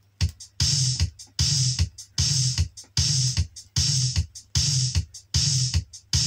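Opening of a mid-1980s Cantopop track played from a vinyl LP: an electronic drum-machine and synth beat with heavy bass, repeating about every 0.8 s. It starts about a quarter second in.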